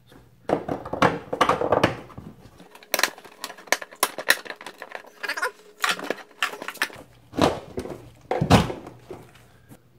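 Corrugated plastic vacuum hose and 3D-printed plastic fittings on a bucket-top shop vac being handled and pushed together: a run of irregular knocks, clicks and scrapes.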